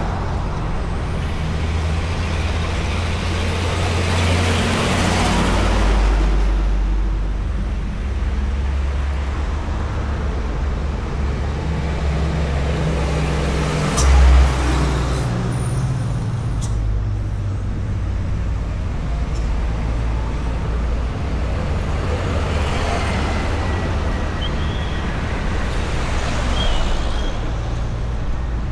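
Road traffic: cars and motorbikes passing one after another, each swelling up and fading away over a steady low rumble of engines and tyres. A short, loud low thump about halfway through.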